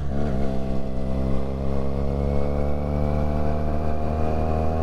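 Motorcycle engine running at a steady cruising speed, heard from on the bike. Right at the start its pitch dips briefly and then comes back up, and it holds steady after that.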